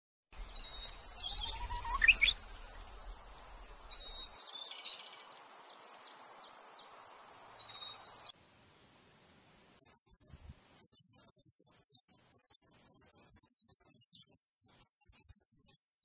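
Small songbirds calling with scattered whistles, then after a short gap, rapid high-pitched cheeping of nestlings begging for food, quick and continuous from about ten seconds in.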